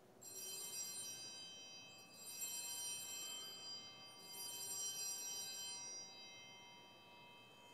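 Altar bells rung three times, about two seconds apart, each ring a bright cluster of high tones that lingers and fades. This is the ringing at the elevation of the host, just after the words of consecration.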